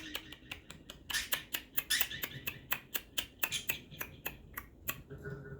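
Parrot making a rapid, irregular run of sharp dry clicks, several a second, with a faint short tonal note near the end.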